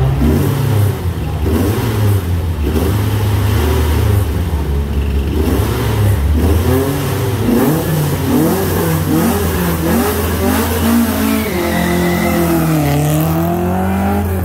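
Opel rally car's engine revved repeatedly at a standstill in quick rising-and-falling blips, then held at a steadier pitch near the end.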